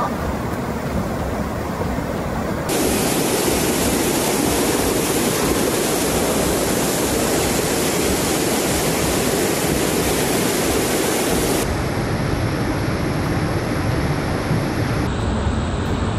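Rushing floodwater, a steady noisy rush. Its tone changes abruptly about three, twelve and fifteen seconds in, at cuts between clips.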